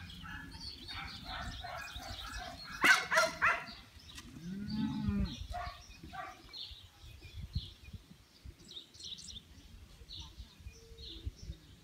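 A sheep bleats: a long, low baa about four to five seconds in, after a louder, higher call about a second earlier. Small birds chirp throughout.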